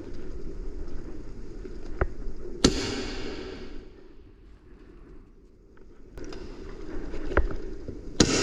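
Airsoft gunfire: four single sharp shots, two close together about two seconds in and two more near the end. The second and last are the loudest and leave a ringing tail.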